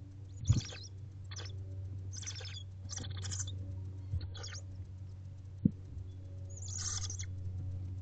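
Barn owlets giving short hissing, snore-like calls, six bursts of half a second or less, over a steady low hum. Two sharp knocks stand out, about half a second in and just past halfway.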